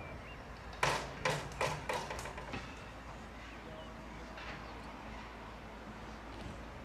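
BR Standard Class 4 2-6-0 steam locomotive No. 76084 pulling away: about six sharp exhaust beats, roughly three a second, each fainter than the last, then a low steady rumble.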